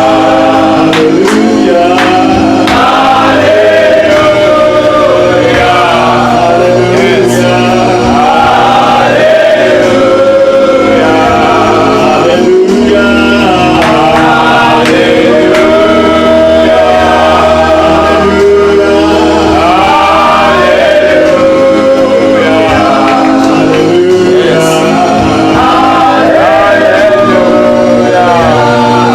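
Group gospel worship singing, voices in a choir-like chorus over sustained low accompaniment.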